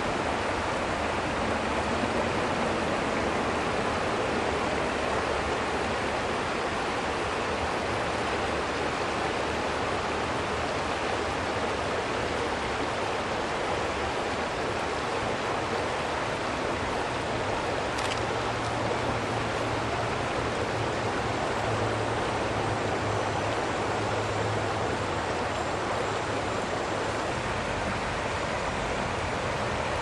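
River water rushing steadily over rocks in shallow rapids.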